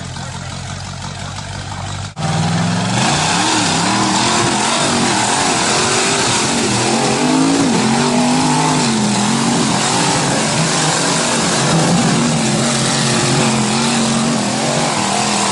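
Off-road 4x4 engine running steadily at low revs, then after an abrupt cut about two seconds in, an engine revving hard, its pitch rising and falling again and again as the throttle is worked.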